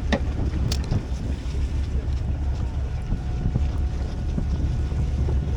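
Strong wind buffeting the microphone in a steady low rumble, with a couple of sharp clicks in the first second.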